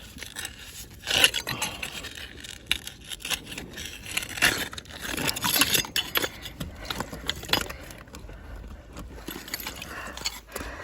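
Digging in wet tidal-flat mud at an octopus burrow, with irregular scraping and rustling strokes, the loudest about a second in.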